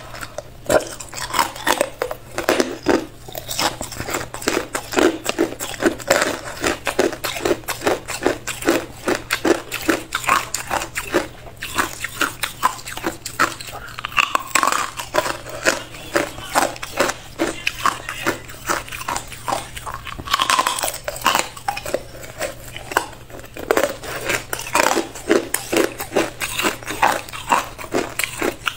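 Hard ice being bitten and crunched between the teeth: dense, sharp cracking crunches, several a second, with short pauses between bites. A faint steady low hum runs underneath.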